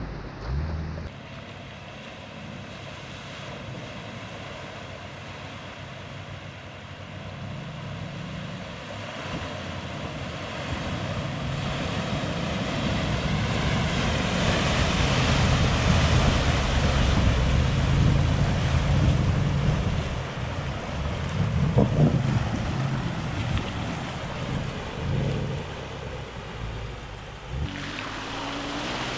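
Range Rover wading through lake water: a rush of water churning and spraying off its front, building to its loudest about halfway through, over the low sound of its engine.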